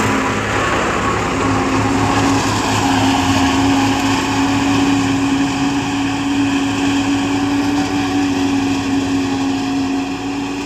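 Sonalika 750 tractor engine working steadily under load while it drives a PTO-mounted forage harvester chopping standing maize. A steady whine from the harvester's spinning cutter and blower sits over the engine's running.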